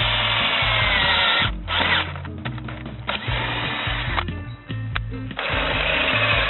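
Bosch power drill boring into the steel sheet of a car's A-pillar in several short runs with brief pauses, the bit grinding through metal that is harder than expected. Background music plays underneath.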